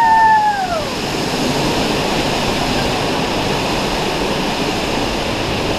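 Steady rush of a waterfall close at hand. In the first second a brief high call falls in pitch and fades.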